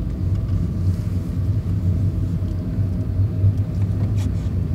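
A car's engine and tyres running at low speed, heard from inside the cabin as a steady low rumble.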